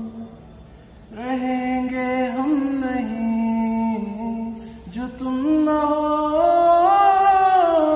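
A single wordless vocal line from a song: a voice holding long notes and gliding between them, sung without words, with a short gap near the start and another about four seconds in.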